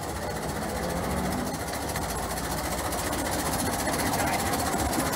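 Ruston & Hornsby four-wheeled diesel shunting locomotive's engine running at low speed with a fast, even beat, growing louder as the locomotive draws up alongside.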